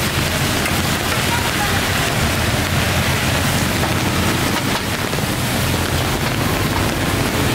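Steady rain falling, with motorbikes and a car passing on the wet road.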